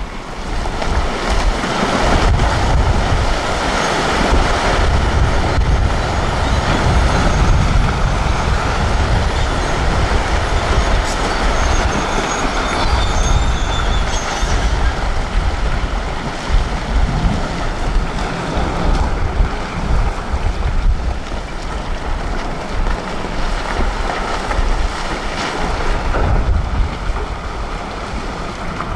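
Rock slide down a quarry face, set off by an excavator working at its foot: loose stones and boulders tumbling and clattering over one another in a long, continuous rumble. It swells about half a second in, is heaviest for the first fifteen seconds or so, then eases but keeps trickling.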